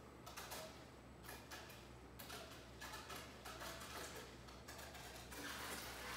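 Reef aquarium water circulation: irregular trickling and splashing clicks over a steady low pump hum, with a steadier rush of falling water swelling near the end.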